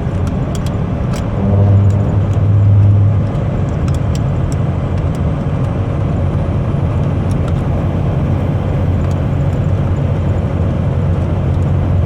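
Steady road noise and engine drone inside a moving car's cabin, swelling louder for a second or two early in the stretch, with faint scattered clicks over it.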